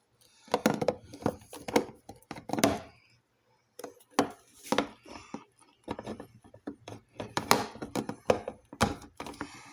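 Irregular plastic knocks, clicks and scrapes as a new HG-N filter cartridge is lined up and pushed into its housing in a Leveluk SD501 water ioniser until it seats snugly, with a short pause about three seconds in.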